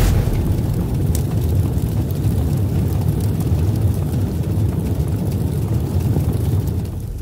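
Low, steady rumbling sound effect that eases off near the end.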